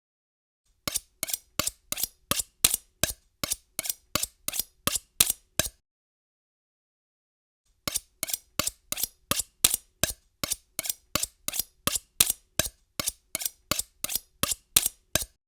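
Kitchen knife being sharpened, the blade drawn across the sharpener in quick, short, bright strokes, about three a second. One run of strokes stops about six seconds in, and after a pause of about two seconds a second run begins.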